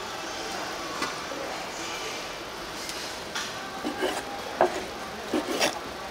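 Kitchen clatter over a steady background hiss: from about halfway, a few sharp, irregular knocks of utensils against hard surfaces.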